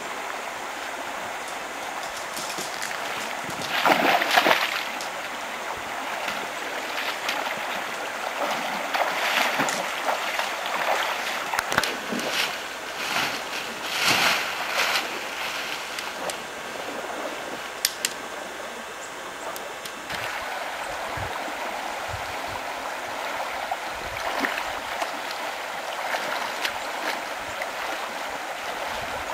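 Shallow water running over rocks, a steady rushing, with a louder stretch of splashing about four seconds in.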